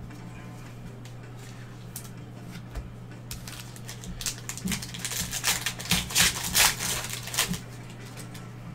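A 2019-20 Mosaic basketball card pack's wrapper being torn open and crinkled by hand: a dense crackly rustle starting about three seconds in and loudest a couple of seconds later, over a steady low hum.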